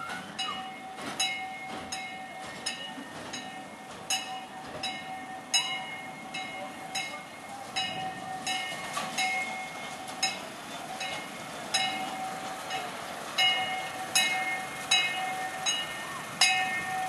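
Small narrow-gauge diesel train rolling slowly over the track: wheels clicking irregularly over rail joints, each click ringing briefly, with a steady high-pitched ring from the wheels alongside.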